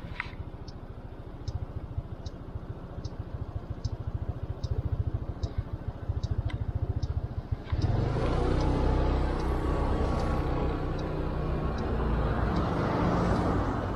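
Motorcycle engine idling at a stop with a light tick repeating about every 0.8 seconds, like a turn-signal relay. About halfway through the engine picks up and gets louder as the bike pulls away, with road noise.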